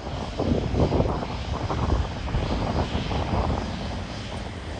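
Jet aircraft engines of a departing plane climbing away: a low, uneven rumble with a crackle in it and a fainter hiss above.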